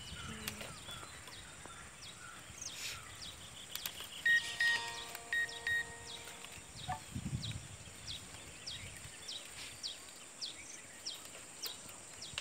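Outdoor countryside ambience of birds calling, with short falling chirps repeating every half second or so. A louder run of whistled notes comes a few seconds in, over a steady high hiss.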